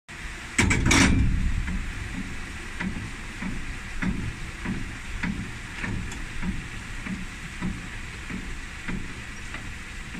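Funicular cliff railway car running on its steep track: a loud clunk about half a second in, then an even clacking about every 0.6 seconds over a steady hiss.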